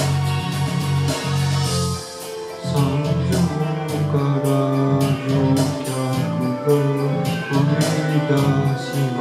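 Karaoke backing track playing an instrumental passage between sung lines.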